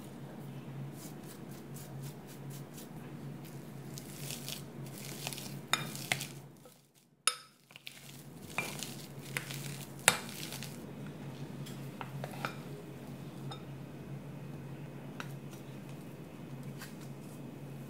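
A metal utensil stirring and scraping soft mashed potatoes in a glass bowl, with irregular clinks and knocks against the glass and a few louder taps. A faint steady low hum runs underneath, and the sound cuts out briefly near the middle.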